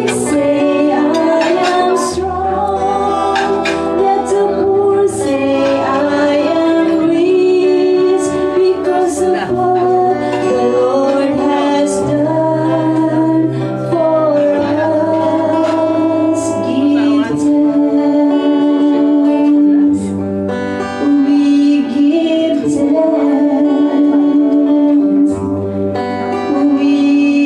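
A worship song sung with instrumental accompaniment: held, wavering vocal lines over a bass that changes note every one to two seconds, with regular strummed or percussive strikes.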